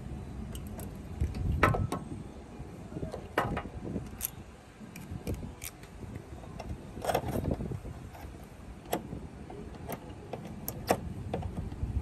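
Irregular clicks and knocks of a screwdriver and small metal and plastic parts as the wiring and electrical box of an air conditioner's indoor unit are worked on, about a dozen in all, over a low background rumble.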